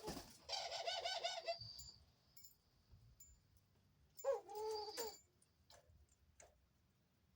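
A female pet dove cooing twice. The first coo, about half a second in, lasts about a second with a rough, rapidly pulsing texture. A shorter coo with a brief rising start comes about four seconds in.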